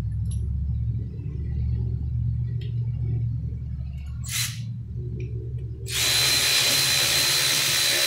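Handheld power tool driving the track's mounting bolts: a short burst about four seconds in, then about two seconds of loud hissing running with a steady high whine, which stops near the end. A steady low hum sits underneath throughout.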